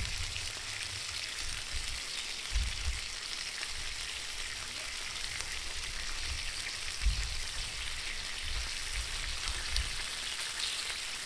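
Food frying on a hot plate with a steady sizzle, broken by a few dull low thumps.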